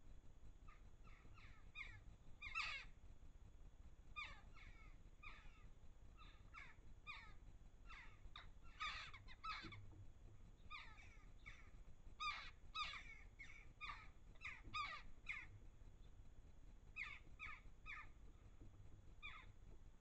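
A group of jackdaws calling: many short, sharp 'chack' calls in quick runs of two to four, overlapping from several birds, with a brief lull partway through.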